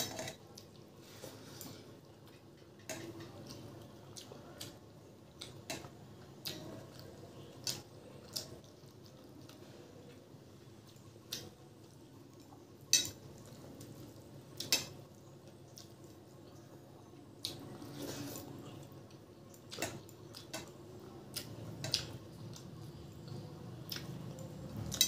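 Fingers mixing rice with thin lentil dal on a stainless steel plate: wet squishing, with irregular sharp clicks against the steel and eating sounds. The loudest click comes about halfway through.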